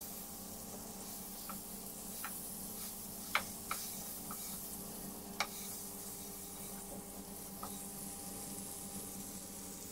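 Butter melting and faintly sizzling in a frying pan, stirred with a wooden spatula that knocks lightly on the pan about six times, loudest around three and a half and five and a half seconds in. A steady low hum runs underneath.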